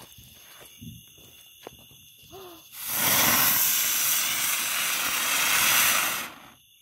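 Ground fountain firework burning: a loud, steady hiss of spraying sparks that starts about three seconds in and dies away about three and a half seconds later.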